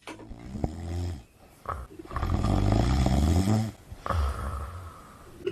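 A man snoring: three long snores, the middle one the loudest and longest.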